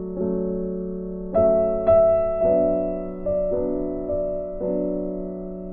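Background music: a slow piano melody, notes struck about once a second and left to fade, with two louder notes between one and a half and two seconds in.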